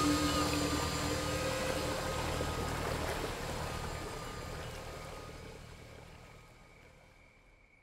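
FPV drone's motors and propellers whirring steadily, fading out gradually to near silence.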